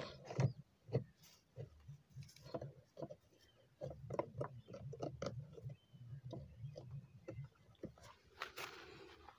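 Faint scattered clicks, taps and scraping of a 12-volt battery being pushed and fitted into the plastic battery compartment of a battery knapsack sprayer.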